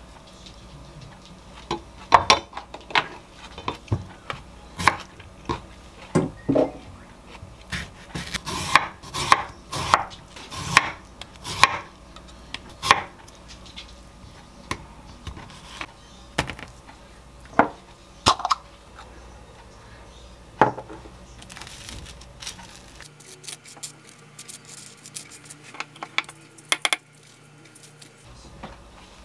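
Kitchen knife slicing tomatoes on a wooden cutting board: irregular sharp knocks of the blade against the board, with quieter handling in between. Near the end these give way to faint light scraping and ticks of a spoon spreading grain mustard on bread.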